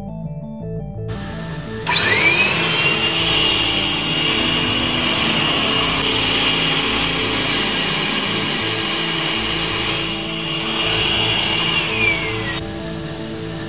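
Vacuum cleaner, rigged as a suction cooler for roasted coffee beans, switched on: its motor whine rises quickly to a steady high pitch over a rush of air. Near the end the whine falls away as it is switched off. Background music plays throughout.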